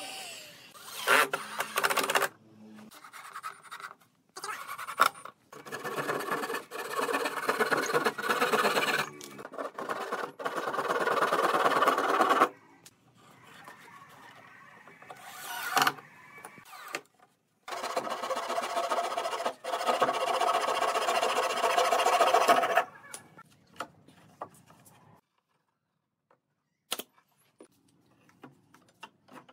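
Cordless drill driving screws into the wooden hull, running in several bursts of a few seconds each with short pauses between. Near the end it goes almost quiet, with a few light clicks.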